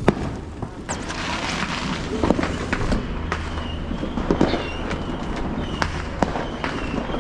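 Fireworks going off: a scattered series of sharp cracks and pops, some louder than others, over steady background noise.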